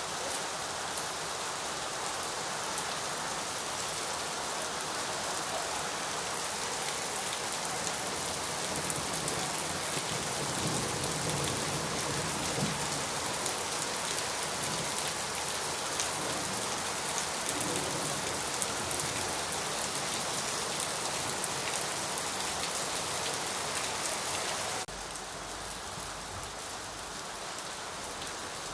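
Steady rain falling, a dense even hiss with many fine drop ticks. About 25 s in, the sound drops abruptly to a quieter rain with more low rumble, as if it were spliced to a different recording.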